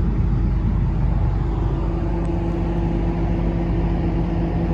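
Volvo EC360CL hydraulic excavator's diesel engine running steadily with a low rumble. A steady hum comes in about two seconds in.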